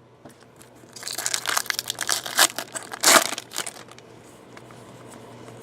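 Foil trading-card pack wrapper crinkling and crackling as it is torn open and handled, in a burst of about three seconds starting about a second in, loudest near the middle.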